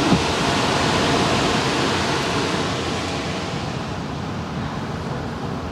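Waterfall rushing under a road bridge as a motorhome drives across: a steady hiss of falling water, loudest about a second in, then slowly fading.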